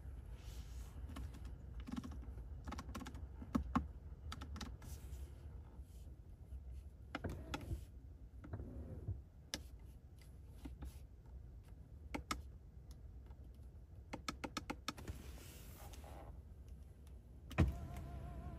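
Clicks of a car's switches and controls being worked, with a short whir of a small electric motor partway through and a thump near the end.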